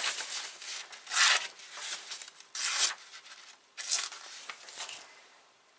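Edge of a Plotnik No. 2 carpenter's axe slicing through a sheet of glossy catalogue paper: three short swishing cuts with paper rustling between them. It is a paper-slicing test of the edge after rope cutting; the edge has dulled only slightly.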